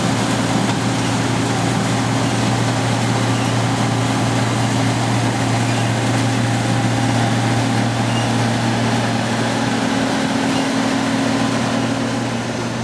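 John Deere C670 combine harvester running steadily at work: a constant low engine hum under a broad mechanical noise.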